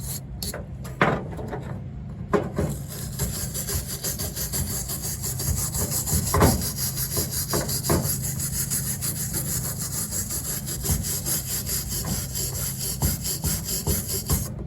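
Coconut-shell birdhouse being rubbed down by hand to clean it, a fast steady run of back-and-forth scraping strokes, with a few louder knocks.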